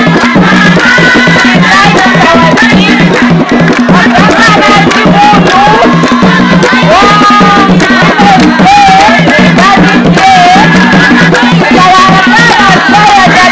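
Traditional drumming on large wooden hand drums, a steady driving rhythm, with voices singing over it.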